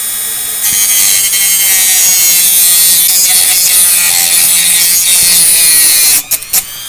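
Dremel rotary tool grinding to smooth off a freshly cut edge. It runs steadily, turns louder and harsher about half a second in as the bit bites, and cuts out near the end after a few short touches.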